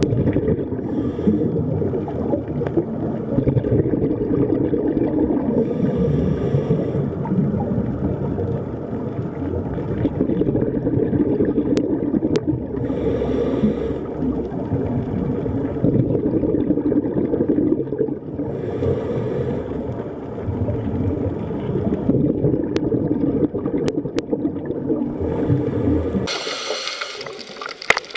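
Underwater ambience: a dense low rumble with short hissing, bubbling bursts about every six seconds. Near the end it cuts abruptly to a bright rushing-water hiss.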